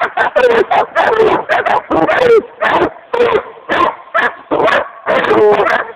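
Coonhounds barking fast and without let-up, two or three barks a second, each bark dropping slightly in pitch.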